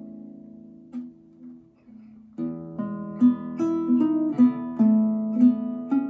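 Solo 1852 Augustin Altamira Codina guitar, fingerpicked: a few soft, sparse notes ring and fade, then about two and a half seconds in a livelier, louder passage of plucked notes and chords begins.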